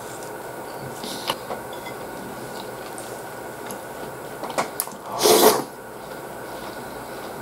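Eating sounds from a person eating beef stew and bread: a few light clicks of a metal spoon against the plate, then a short, loud slurp from the spoon about five seconds in, over a steady room hum.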